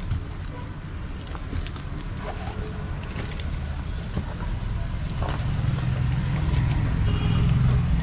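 Low rumble of road traffic passing close by, growing louder over the last few seconds, with faint scattered scuffs of footsteps.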